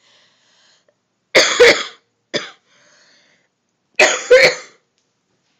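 A sick girl coughing hard: two fits about two and a half seconds apart, each a pair of quick coughs, with a single short cough between them.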